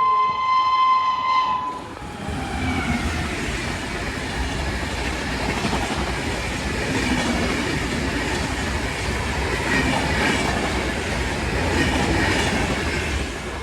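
A train horn sounds one steady note and cuts off about two seconds in. A train then passes at high speed, with a steady rumble and wheel clatter over the rail joints.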